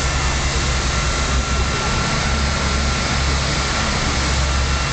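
A heavy engine running with a steady low rumble, under a constant even hiss.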